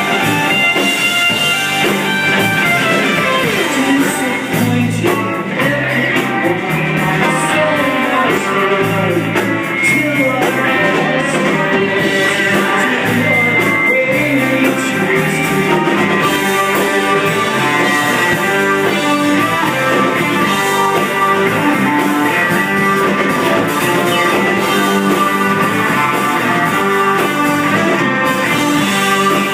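Live rock band playing electric guitars, bass and keyboards in a steady, continuous groove.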